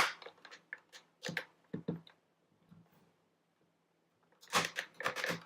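Sharp plastic clicks and taps as a release tool is worked into a Dyson V6 stick vacuum's plastic main body, a pause of about two seconds, then a burst of clattering plastic handling noise near the end as the body is pried open.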